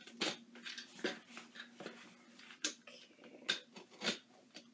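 Cardboard shipping box being opened by hand: irregular sharp clicks and scrapes of cardboard and packing tape.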